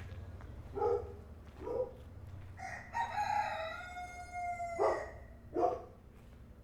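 Rooster crowing: one long cock-a-doodle-doo from about two and a half seconds in, held then falling at the end, with a few short calls before and after it.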